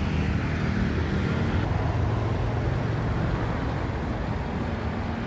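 Steady road traffic noise: car engines running with a low, even hum and tyre noise.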